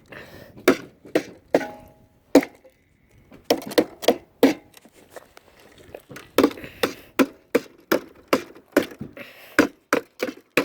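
Hammer striking the rusted-out metal of a lawn mower again and again, sharp separate blows at an irregular pace of two or three a second, with a short pause about two seconds in, as the rusted metal is broken away.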